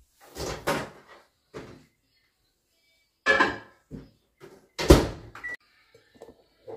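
A door being handled and shut: a few separate knocks and clatters, then a loud thunk about five seconds in.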